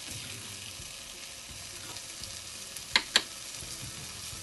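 Oil and pan juices sizzling steadily in a Lodge cast iron skillet. About three seconds in, a metal spoon clinks twice against the pan as it is laid in it.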